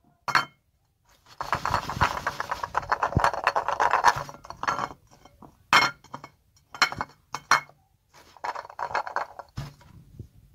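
Bars of soap being handled on a ceramic plate: sharp clicks and clinks as they are set down and knock against the plate and each other, with a long stretch of busy scraping and rubbing about a second and a half in, and a shorter one near the end.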